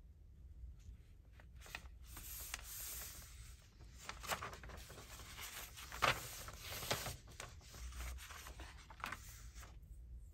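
Paper being handled: rustling and scraping with several sharp crinkles and taps, the loudest about six seconds in.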